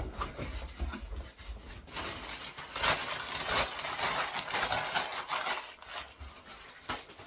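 A parcel being cut open and unwrapped by hand: packaging rustling and tearing, loudest in the middle, with a few low handling knocks in the first two seconds.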